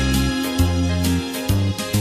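Background music: pitched instrumental notes over a bass line that changes note about every half second, with a steady beat.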